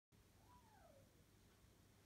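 Near silence: room tone with a low hum, and one faint short call falling in pitch about half a second in.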